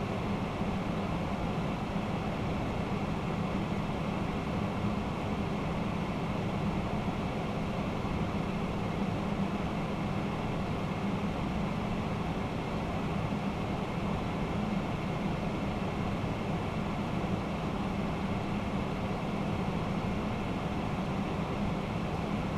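Steady flight-deck noise of a Boeing 767-300ER in flight: a constant rush of air with a low engine drone, unchanging throughout.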